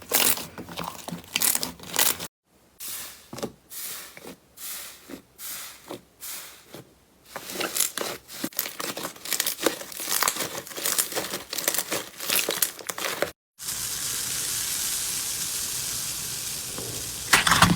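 Hands working slime: dense crackling, popping and crinkling in several short cuts, one of them a run of soft squishes under a second apart, and a few seconds of steady hiss near the end.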